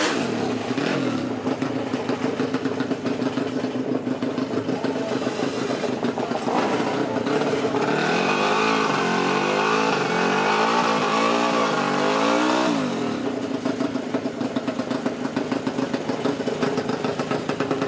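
Drag-race motorcycle with twin exhaust mufflers running in the pits. Its engine is revved up and down several times from about six to thirteen seconds in, and runs steadily before and after.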